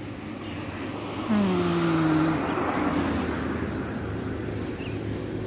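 A motor vehicle passing close by on the road: its noise swells about a second in, and its engine note drops in pitch as it goes by, then fades away.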